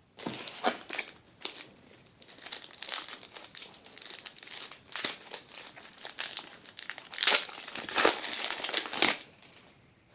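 A trading card pack's wrapper crinkling and crackling as it is torn open and handled, with a few louder crackles near the end.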